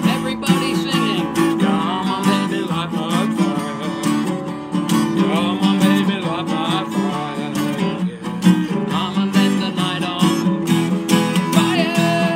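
Acoustic guitar being strummed, with a man singing over it and holding a long note near the end.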